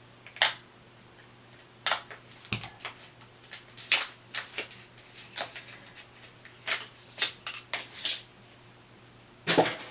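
A small plastic makeup container and its taped packaging being opened by hand: irregular clicks, snaps and short scrapes, with a low knock about two and a half seconds in.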